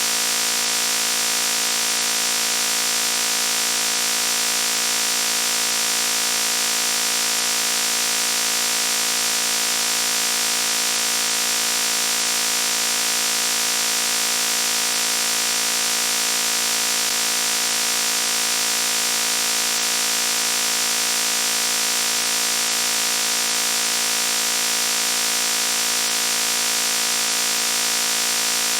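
Loud, harsh buzzing noise with a hiss over a set of fixed tones, unchanging and without a break.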